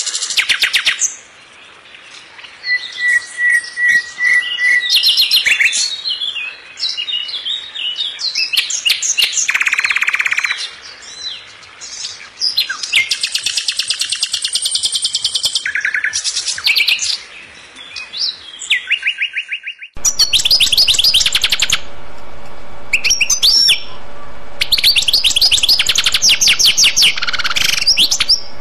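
Birds chirping and singing in rapid high trills and short calls. About two-thirds of the way through, the recording cuts to another stretch of birdsong with a steady hum behind it.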